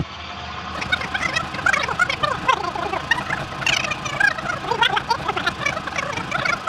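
Tape-rewind sound effect: recorded audio run backwards at high speed, a fast squeaky chatter of short gliding pitches over a low hum.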